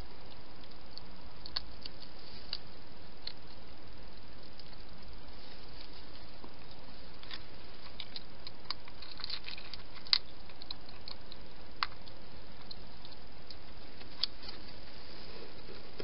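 A wild hedgehog eating: irregular small clicks and crunches, busiest in the middle, with the sharpest click about ten seconds in, over a steady hiss.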